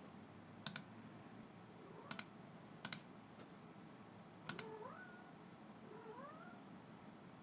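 Four sharp clicks, most of them quick doubles, spread over the first half. Then two short calls that rise in pitch.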